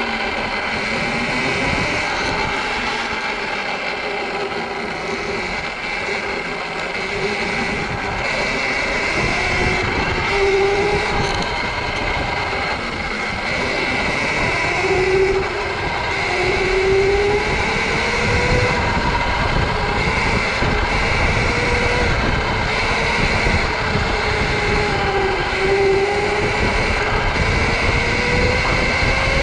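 Sur-Ron electric dirt bike being ridden: the electric motor's whine rises and falls in pitch with speed over low wind and tyre noise, which grows louder in the second half.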